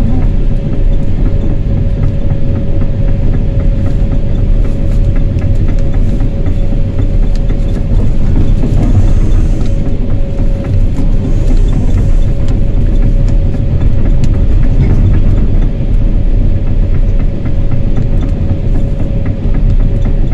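Wheel loader's diesel engine running as the machine drives, heard from inside the cab: a heavy low rumble with a steady whine and frequent small rattles.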